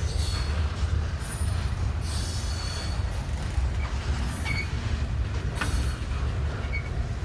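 Train rolling slowly past with a steady deep rumble, its wheels giving off thin high-pitched squeals on and off as it brakes to a stop.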